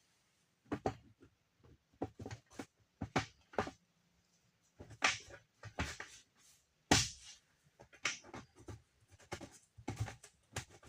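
Irregular short clicks and knocks of a cover plate being handled, fitted back into place and fastened.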